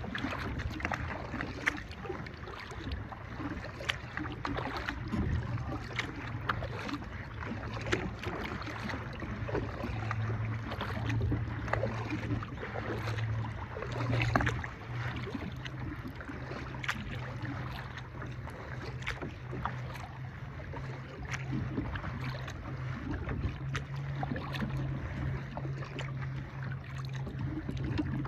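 Water splashing and lapping against a kayak, with frequent small clicks and knocks over a steady low hum.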